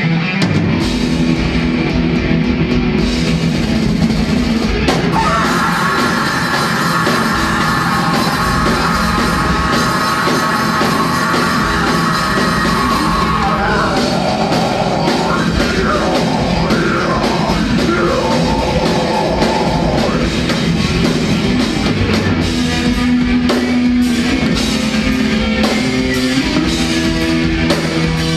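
Live rock band playing: electric guitars, bass guitar and drum kit, loud and continuous, with a singer's voice over the band in the middle stretch.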